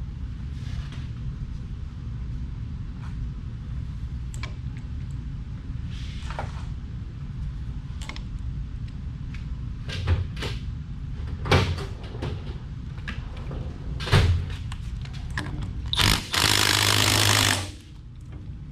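Metal tools knocking and clicking against the TrueTrac differential as it is taken apart, with a short burst from a power tool near the end.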